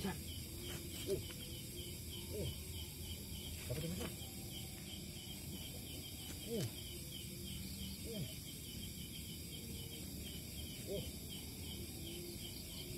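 Crickets chirping in a steady, even pulse of about three chirps a second, with a few short, low sliding sounds now and then.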